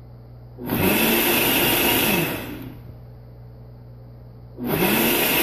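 Nutri Ninja Auto IQ 1000-watt blender pulsing on its automatic Ultra Blend program, blending frozen fruit and milk. The motor spins up with a rising whine under a second in, runs for about a second and a half and winds down. After a pause of about two seconds it spins up again near the end.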